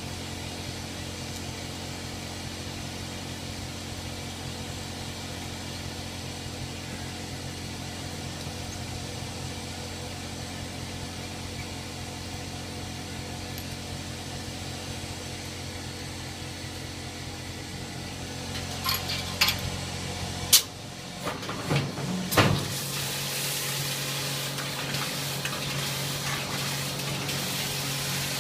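A steady low hum, then a few sharp knocks about two-thirds of the way through. After them, water spraying from a pull-out kitchen faucet's spray head: a steady hiss over a low hum.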